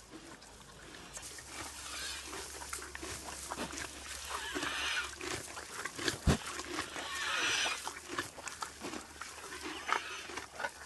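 A pony with equine asthma (heaves) breathing noisily, with two drawn-out rasping breaths, the sound of its airway trouble. A single sharp knock comes in between them.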